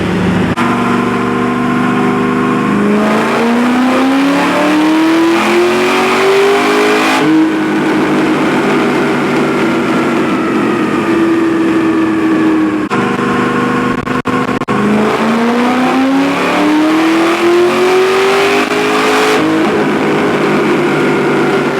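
Car engine revving up twice, its pitch climbing steadily for about four seconds each time, then running at a steadier pitch in between.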